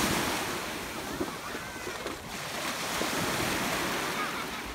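Sea water washing in the shallows at the beach edge, a steady surf hiss, with faint children's voices.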